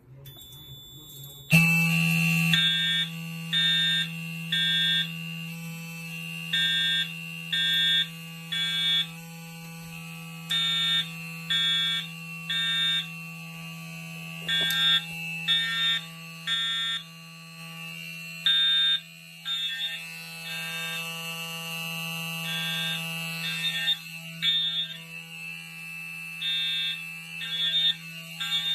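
Fire alarm system sounding in alarm after a manual pull station is pulled. It starts about a second and a half in: the Edwards 895B-301 mechanical horn buzzes steadily on continuous, and electronic horns beep over it in a temporal-three pattern, three beeps then a pause, over and over.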